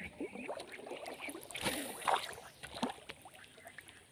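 A spinning rod and reel are handled and cast: rustle and clicks at the reel, then a brief swish of the cast about a second and a half to two seconds in, followed by a few sharp ticks.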